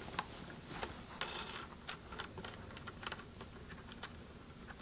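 Faint, scattered light clicks and handling noise as a hex wrench and fingers unscrew the propeller nut on a wind monitor's plastic propeller hub.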